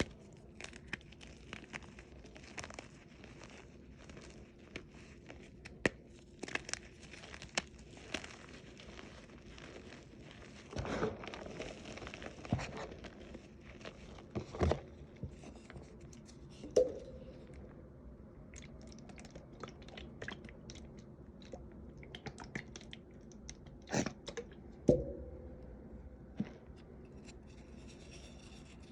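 Crunchy reformed chalk being crushed and crumbled: a continuous run of small crackles and crumbles, broken by several louder sharp crunches as pieces snap.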